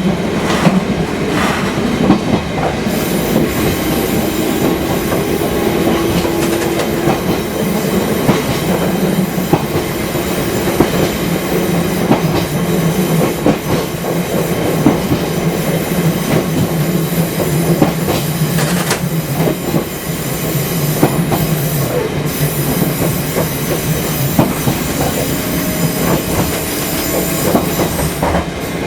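Fukui Railway 200 series electric railcar running along the line, heard from inside the car: a steady rumble and motor hum, with frequent clicks of the wheels over rail joints.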